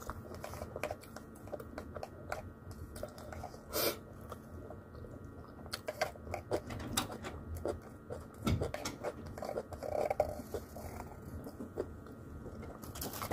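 Close-up eating sounds: chewing and mouth noises, mixed with irregular light clicks and scrapes of a plastic spoon in a small paper side cup. One sharper click comes about four seconds in.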